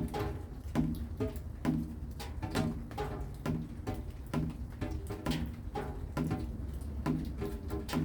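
Rain dripping in a steady rhythm: short pitched plonks a little more than once a second over a continuous low patter.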